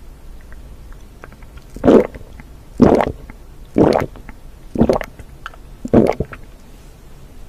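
Water gulped from a glass, close-miked: five loud swallows about a second apart.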